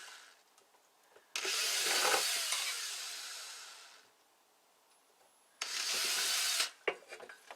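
Small old belt sander's motor switched on in short bursts: it starts suddenly, runs for a couple of seconds and winds down, then runs again for about a second near the end.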